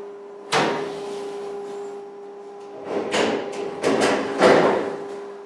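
The stainless steel hood of a Hobart commercial dishwasher is slid up with a metallic rush about half a second in. A few seconds later a plastic dish rack of cups is pulled out across the steel table in several scraping rattles. A steady hum runs underneath.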